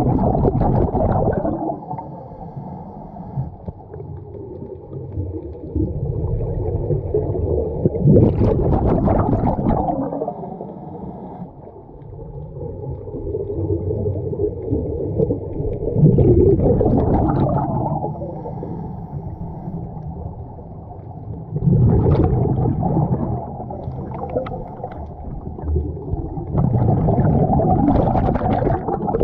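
A scuba diver breathing through a regulator underwater: a bubbly gurgling surge of exhaled air about every six seconds, five in all, with a low steady rumble between breaths.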